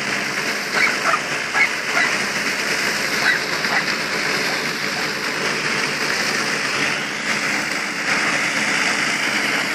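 Tractor driving an F.lli Merlini M60 manure spreader, its two vertical beaters flinging manure: a steady rushing mechanical noise with a few short ticks in the first few seconds.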